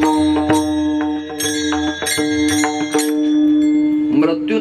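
Kirtan accompaniment: a steady held drone with small hand cymbals (taal) struck in an even beat, about two strikes a second. A man's voice comes in near the end.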